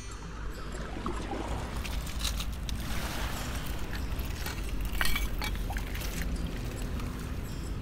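Water lapping and trickling among the stones of a river foreshore, over a low wind rumble on the microphone. Scattered clicks and scrapes of pebbles come as a hand reaches in among the stones, loudest about five seconds in.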